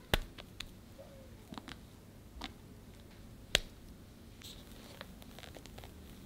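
Kitchen-utensil handling while whipped cream is piled onto a sponge cake: several sharp clicks and taps, the loudest about three and a half seconds in. Then soft swishing as an offset spatula starts spreading the cream over the sponge.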